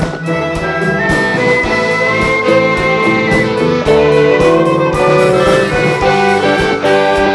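A small orchestra playing live: bowed violins carrying a melody over cello and wind instruments, with percussion keeping a steady beat.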